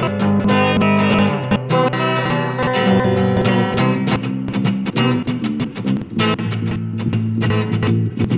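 Background music: a guitar track of plucked and strummed notes playing steadily.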